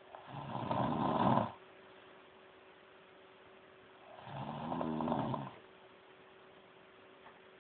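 A sleeping person snoring with loud, grunting snores: two long snores about four seconds apart, each lasting over a second.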